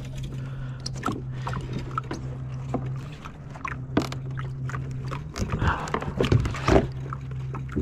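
Scattered knocks, clicks and scuffs of gear and feet against the hull of a plastic sit-on-top fishing kayak as the angler moves around in it, with a louder run of knocks near the end. A steady low hum runs underneath.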